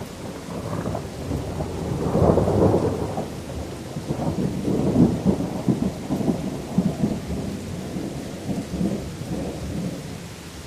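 Rolling thunder over steady rain: a crackling rumble that swells about a second in, peaks twice, and fades away near the end, leaving the hiss of rain.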